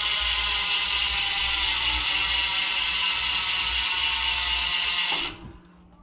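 Mongoose Bolt R29 mountain bike's rear freehub clicking in a fast, steady buzz as the rear wheel spins freely. It cuts off suddenly about five seconds in.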